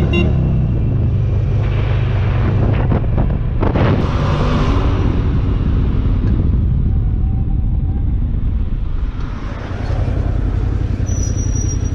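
A motorcycle being ridden, heard from a helmet camera: a steady low engine rumble with wind noise on the microphone, and a few sharp clicks about three and a half seconds in.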